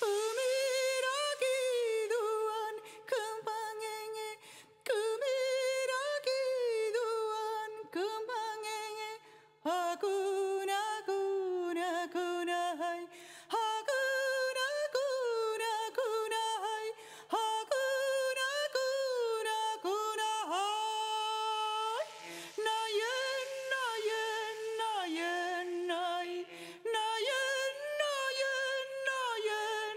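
Music: a high voice sings a slow, unaccompanied melody with long held notes that slide up and down, over a faint steady low hum.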